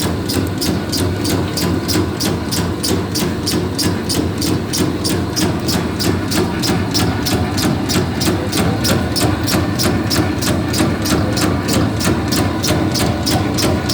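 Electric meatball (bakso) forming machine running: a steady motor hum with a fast, even clicking of its mechanism, about four to five clicks a second.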